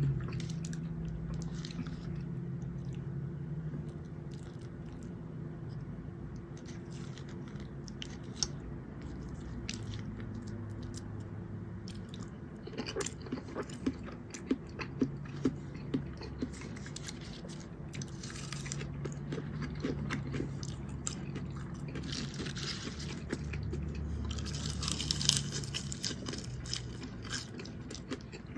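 A person chewing food close to the microphone, with soft wet mouth sounds and a run of sharp clicks about halfway through.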